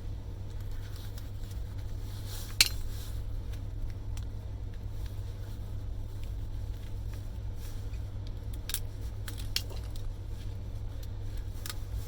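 Sharp clicks and light metallic clinks of hand tools and small metal parts as a miniature circuit breaker is taken apart: a loud snap about two and a half seconds in, and a few smaller clicks near the end, over a steady low hum.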